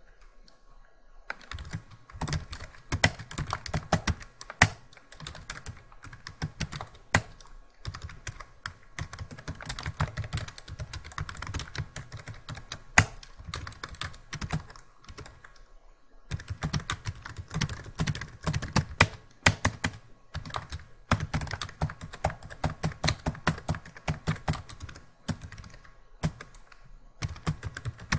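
Typing on a computer keyboard: rapid runs of keystrokes starting about a second in, with a brief pause partway through.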